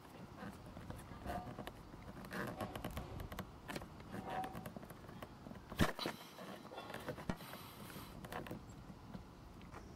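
Fingertips gripping and twisting the stiff plastic licence-plate lamp cover of a Suzuki Jimny Sierra JB74W counterclockwise: close-up scraping and clicking, with a few short squeaks and one sharp click about six seconds in.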